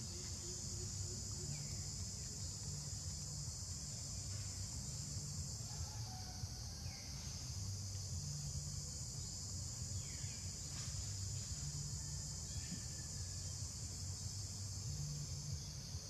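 Steady, shrill drone of insects calling in the forest, with a low hum that swells and fades and a few faint short chirps.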